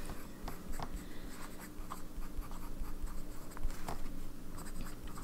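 Sailor 1911S fountain pen with a zoom nib writing on notebook paper: a run of short, irregular nib scratches and small taps as letters are formed.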